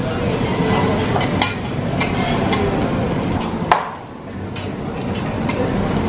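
Teppanyaki cooking on a steel griddle: metal spatula and scraper clicking and scraping against the hotplate while food sizzles. A sharp clack comes a little past halfway, after which the sound briefly goes quieter.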